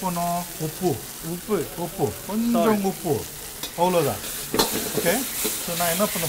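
A metal ladle stirring and scraping sauce around a hot wok while it sizzles, the ladle scraping the pan in short, squeaky strokes that rise and fall in pitch.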